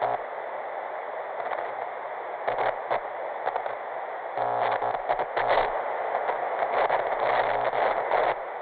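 Television static hiss broken by irregular glitchy crackles and short low electronic buzzes: a 'missing signal' sound effect. The glitches come thicker in the second half.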